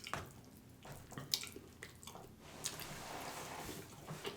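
Close-miked eating sounds: soft, scattered wet smacks and clicks of a person chewing barbecued rib meat.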